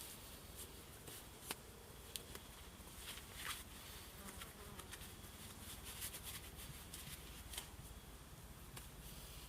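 Faint rustling of chili plants with scattered small clicks and snaps as peppers are picked by hand, over a steady soft hiss.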